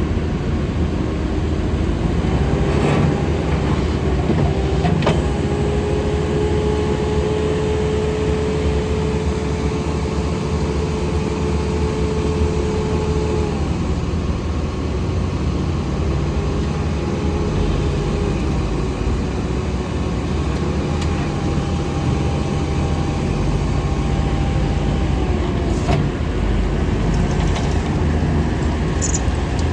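Case TV380 skid steer loader's engine running steadily. A whine steps up in pitch and holds for several seconds, three times over, with a few sharp clanks.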